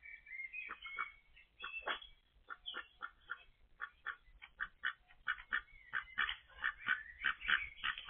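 Ducks quacking in a run of short calls that grow faster and louder through the second half, with a few higher chirping notes near the start.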